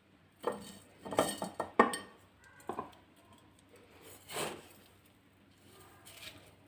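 Knocks and clinks against a glass jar as salt-stuffed lemon quarters are put in and pressed down: a quick cluster in the first two seconds, then a few single knocks spaced out.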